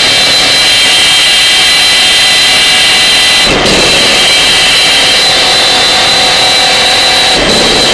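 Loud harsh electronic noise music: a dense hiss with steady high whistling tones over it. The texture shifts abruptly about three and a half seconds in and again just before the end.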